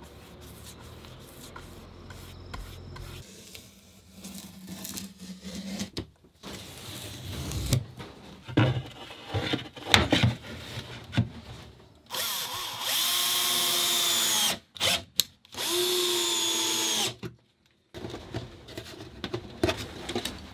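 Power drill driving screws into wooden boards in two runs of about two seconds each, its pitch dropping near the end of each run. Before that, the wooden boards knock and rub as they are laid in place.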